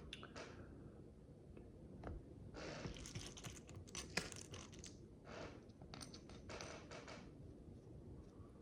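Tiny plastic micro bricks being handled and sorted by hand: soft clusters of small clicks and rustles, with one sharper click about four seconds in.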